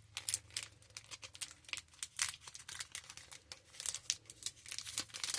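Trading card pack wrapper crinkling and crackling as it is worked at and pulled on, a run of quick irregular crackles; it is being opened from the bottom and not tearing open.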